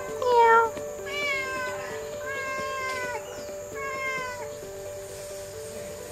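Domestic cat meowing four times in the first few seconds, the first call the loudest and the calls mostly sliding down in pitch, over soft background music.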